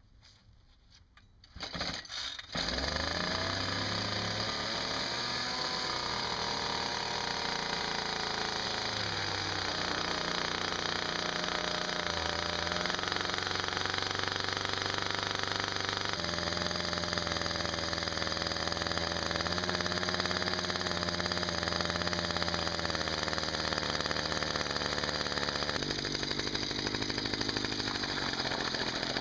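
Ryobi string-trimmer two-stroke engine, rigged as a small boat motor, starting about two seconds in and then running under load as its propeller churns and sprays water out of a tub. The engine speed shifts a couple of times.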